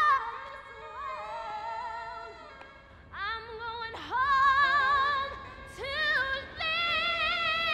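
Woman singing gospel in long, high held notes with wide vibrato, sliding up into each note. Softer for a couple of seconds about a second in, then rising to strong, sustained high notes.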